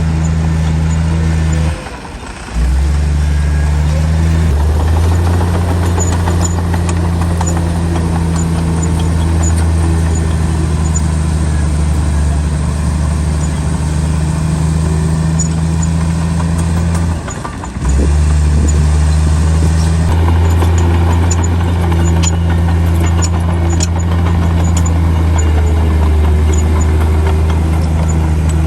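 Komatsu bulldozer's diesel engine running steadily under load with a deep, even drone. The sound drops out briefly twice, and faint high clicks come and go over it.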